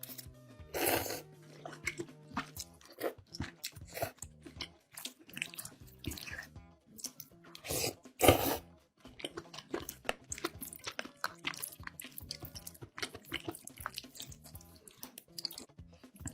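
Close-miked crunchy chewing and biting of food: many short crisp crunches, with louder bites about a second in and about eight seconds in. Background music runs underneath.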